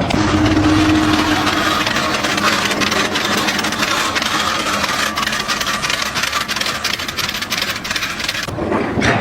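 An engine running, with a dense rattle of rapid clicks over it.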